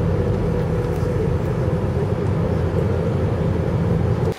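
Cabin noise of an airliner in flight: a steady low drone of engines and airflow with a constant hum, stopping abruptly just before the end.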